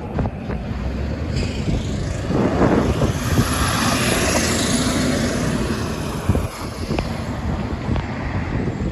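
Road traffic with a box truck driving past close by: its engine and tyre noise swells and fades about the middle.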